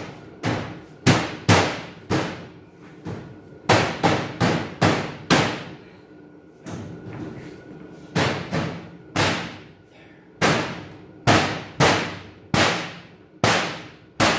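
Sheet-steel panels of a Kobalt tool cabinet being whacked by hand to pop them into their locking channels: about twenty sharp hits in uneven groups, each ringing briefly.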